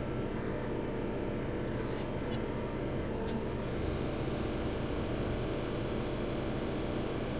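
Steady hiss and hum of a hot air rework station blowing hot air onto a chip on a laptop logic board; the hiss turns a little brighter about halfway through.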